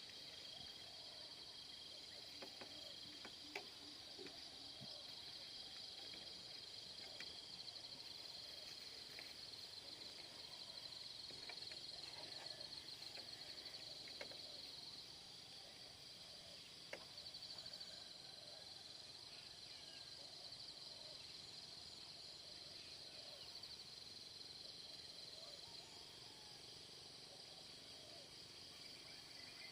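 Faint, steady, high-pitched chirring of insects in a rice field, with a couple of brief sharp ticks, one a few seconds in and one about halfway.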